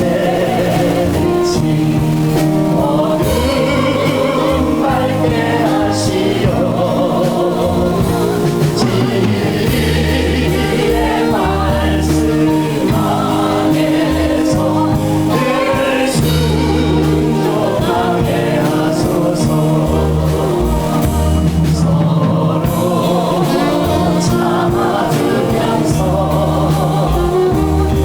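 A choir singing a gospel hymn with instrumental accompaniment and held bass notes.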